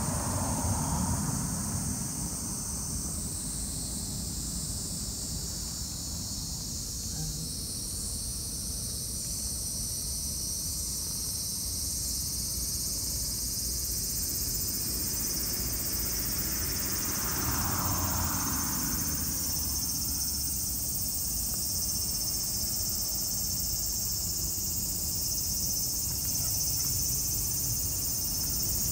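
Steady, high-pitched chirring chorus of insects, crickets among them, with a low rumble underneath.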